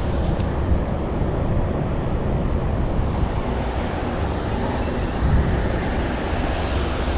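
Steady rushing outdoor noise of wind and flowing water, with a deep rumble and no breaks.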